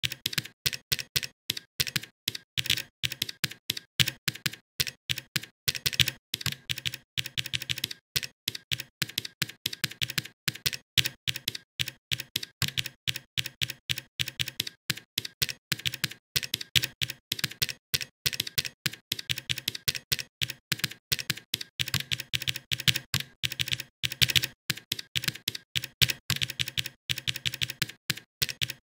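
Typing on a computer keyboard: a steady, rapid stream of keystroke clicks.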